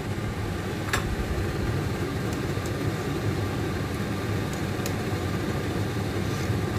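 Pot of sopas boiling on the stove, a steady low rumble, with a sharp clink about a second in and a few faint clinks later, as a metal ladle stirs the pot.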